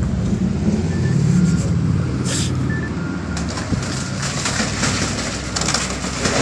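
Tracked excavator's diesel engine running and revving under load, with clattering and crunching of demolition debris starting about three and a half seconds in.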